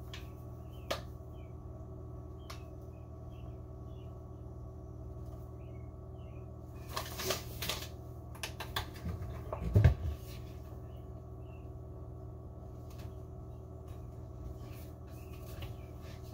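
Pizza dough being stirred by hand in a mixing bowl as flour is worked in: scattered clicks and scrapes of the spoon against the bowl, with a cluster of scraping and knocking from about seven to ten seconds in, loudest a dull thump near ten seconds, over a steady low hum.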